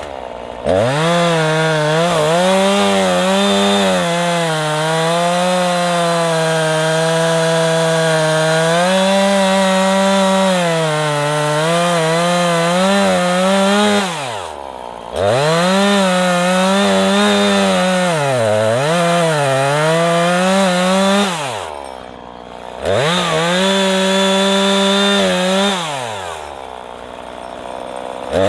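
Two-stroke chainsaw cutting wood at full throttle, its high engine note wavering as the chain bites. Several times the throttle is let off so the note drops toward idle and then revs back up, the last time near the end.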